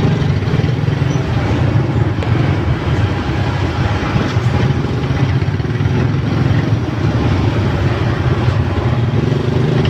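Motorbike and truck engines idling in packed, crawling traffic: a steady, loud, low engine drone.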